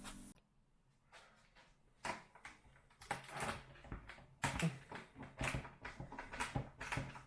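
Irregular light clicks and knocks of small plastic freezer parts and screws being handled, starting about two seconds in and coming several times a second.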